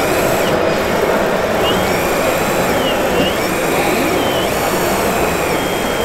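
Hydraulic pump of a scale-model RC Liebherr R 960 excavator whining as the boom and bucket dig, its pitch dipping and rising several times, over a steady noisy background.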